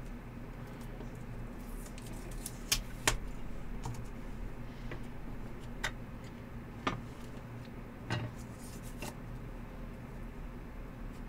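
Sharp plastic clicks and clacks as a clear hard-plastic trading-card holder is handled and opened, about half a dozen in all, over a steady low hum.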